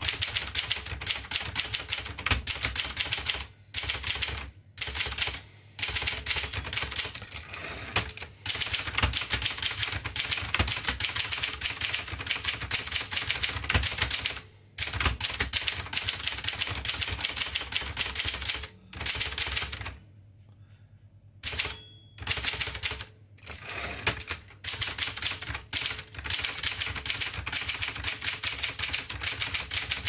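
1958 Adler Special manual typewriter being typed on at a steady pace: rapid clatter of keys and typebars striking the platen, broken by a few short pauses and a longer pause about twenty seconds in.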